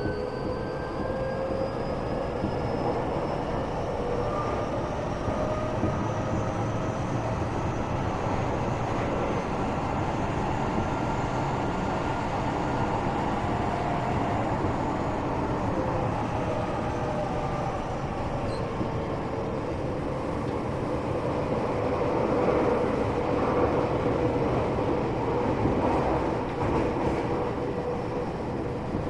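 Tokyo Metro 8000-series electric train running, heard from inside a passenger car: a steady rumble of wheels on rail under the whine of the traction motors. The motor whine rises in pitch over roughly the first ten seconds as the train gathers speed, drops back a little, then climbs again towards the end.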